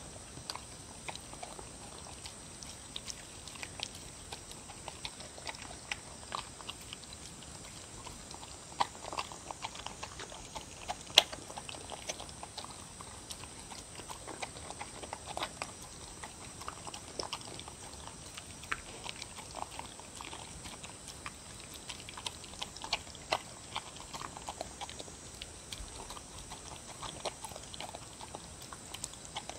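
A dog eating soupy food of seaweed, beef and dried pollack from a bowl: irregular wet smacks, laps and small clicks of the mouth against the bowl, with one sharper click about eleven seconds in.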